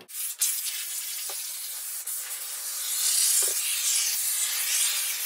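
Aerosol can of marine-grade expanding spray foam hissing steadily as it is sprayed, growing louder about three seconds in, with a couple of faint taps.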